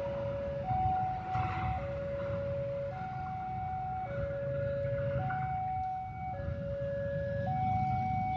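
Railway level-crossing warning alarm sounding: an electronic two-tone that switches back and forth between a lower and a higher note about once a second, signalling that the crossing is closed for trains. A low rumble of background traffic runs underneath.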